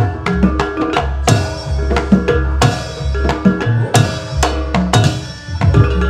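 Banyuwangi-style jaranan campursari music led by hand-played kendang drums: fast, sharp drum strokes over a violin and other held melodic tones, with a steady low bass underneath.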